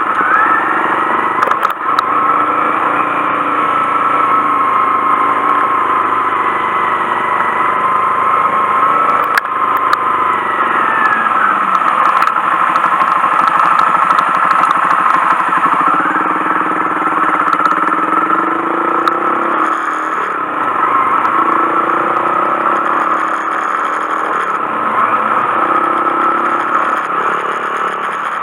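Honda Monkey 125's single-cylinder four-stroke engine running under way, its pitch rising and falling as the throttle is opened and closed.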